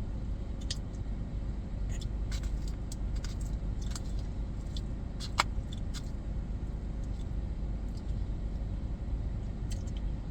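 Scattered light clicks and scrapes of a plastic spork against a takeout mac and cheese container, with one sharper click about five seconds in, over a steady low rumble.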